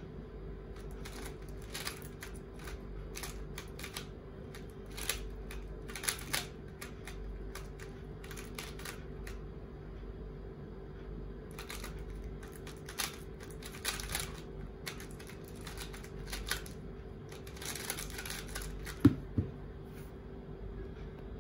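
GAN356 i Carry smart cube being turned fast during a speedsolve: bursts of clicking and rattling plastic layer turns, with a short pause about halfway, over a faint steady hum. Two sharp thumps come near the end.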